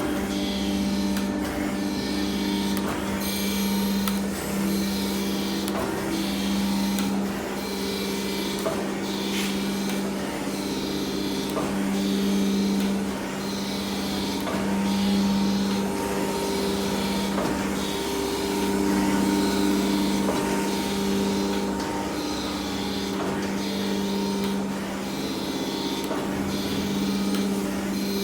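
Kent KGS-515AHD surface grinder running: a steady motor hum with a grinding hiss that swells and fades about once every second and a quarter, in time with the table travelling back and forth.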